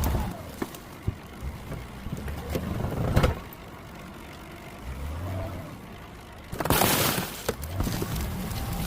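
An engine running unevenly, with a few knocks and a loud rushing burst about two-thirds of the way through.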